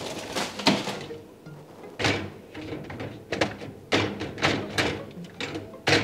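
Plastic cutlery basket knocking and clattering against a dishwasher's wire racks as it is handled and fitted into the lower rack: about a dozen irregular knocks and thuds.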